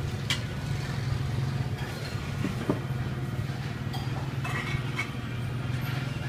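Street background noise: a steady low motor hum, like nearby traffic, with a few short clicks, about three, scattered through it.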